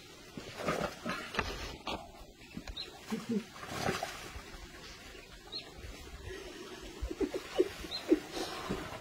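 Short animal calls, brief grunts and squeals, coming and going, with a cluster of quick calls near the end and a faint high chirp repeating every two to three seconds.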